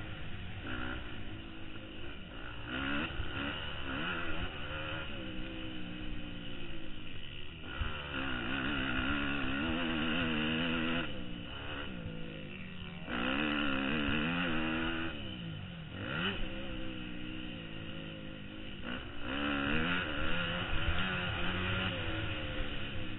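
Motocross dirt bike's engine heard from the rider's helmet camera, revving hard and repeatedly climbing and dropping in pitch with throttle and gear changes around the track, with a sharp drop and climb about sixteen seconds in.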